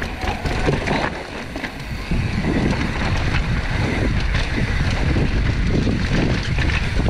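Mountain bike riding down a dirt trail: wind buffeting the microphone over a steady rumble and clatter from the tyres and bike, louder from about two seconds in.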